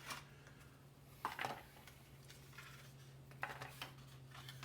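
A few short, light clicks and taps from handling small hardware, in about three clusters, over a steady low hum.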